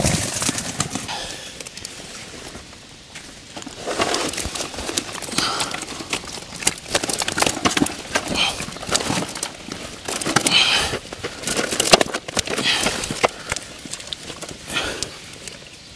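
A heavy catch of live fish being lifted and handled: irregular rustling and knocking, with bursts of flapping and splashing every couple of seconds.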